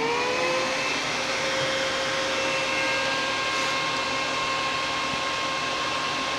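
Desktop PC cooling fans, led by a very loud CPU cooler fan, spinning up as the machine is powered on. Within the first second they rise in pitch, then run steadily as an even rush of air with a high whine of several steady tones.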